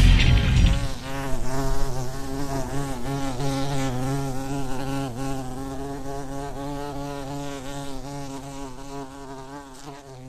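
Logo sting sound effect: a hit at the start, then a steady, buzzing drone with wavering overtones that slowly fades out.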